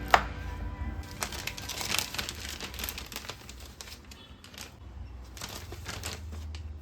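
Background music over crinkling plastic and light clicks of handling, with one sharp click just after the start.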